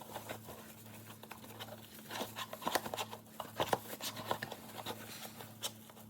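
Irregular light clicks, taps and rustles of items and packaging being handled, over a faint steady low hum.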